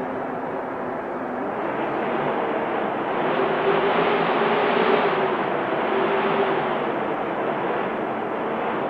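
Wind blowing steadily, swelling in a gust through the middle with a faint low whistle.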